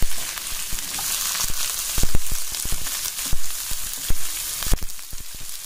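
Chopped onions, garlic and curry leaves sizzling in hot oil in a frying pan, a steady hiss with scattered pops and crackles.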